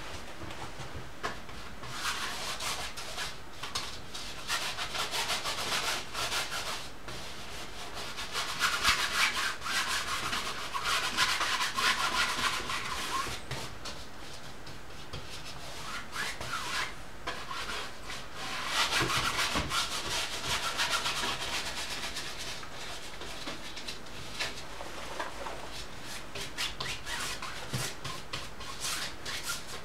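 Oil paint being rubbed and scrubbed onto canvas to blend it: a scratchy rubbing of quick back-and-forth strokes that comes in runs of a few seconds, with short pauses between.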